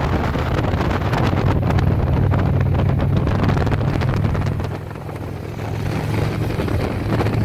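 Steady low drone of a car driving along a road, with wind buffeting the microphone; it eases briefly about five seconds in.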